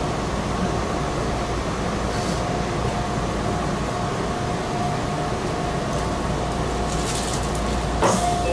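Meitetsu 6000 series electric train running along the line, heard from inside the front car: a steady running rumble with a faint steady hum, and a single sharp clack about eight seconds in.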